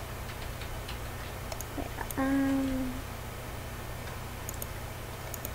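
A person's short, closed-mouth hum ("hmm") about two seconds in, held on one slightly falling pitch for under a second. Under it runs a steady low hum of recording noise, with a few faint mouse clicks.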